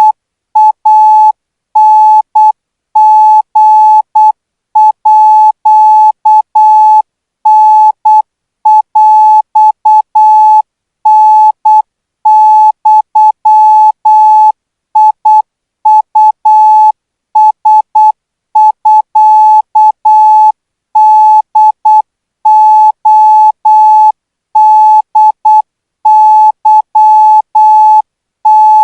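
Morse code practice signal: a single steady beep keyed on and off in short dots and longer dashes with gaps between characters, sending Thai Morse code at 12 words per minute.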